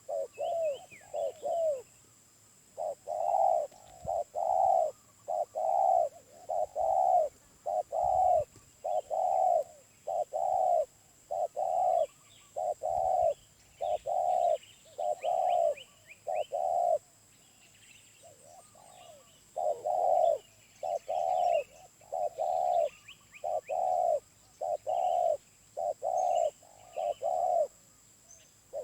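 Wild spotted dove cooing in long runs of low, evenly spaced coos, breaking off for about two seconds a little past the middle before starting again. Smaller birds chirp faintly in the background.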